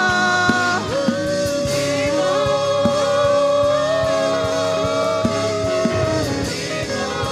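Live worship music: a singer holds long sustained notes over a band with guitar and a steady drum beat.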